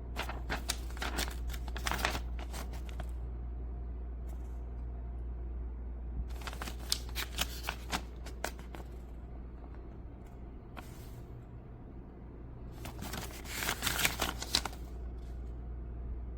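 Handling noises: three spells of quick rustling and clicking, with a steady low hum underneath.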